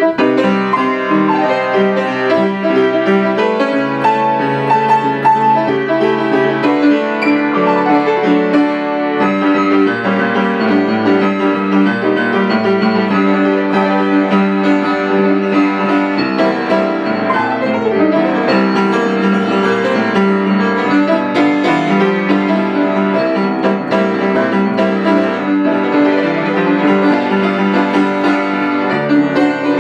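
Solo piano being played, an improvised doodle of melody over sustained chords that runs on without a break.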